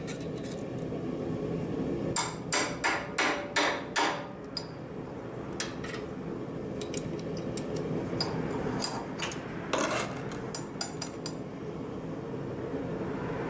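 Metal-on-metal knocks as the freshly pressed rivet is punched out of the steel rivet header with a 1/8 inch punch: a quick run of about six sharp knocks about two seconds in, then scattered lighter clinks. A steady hum runs underneath.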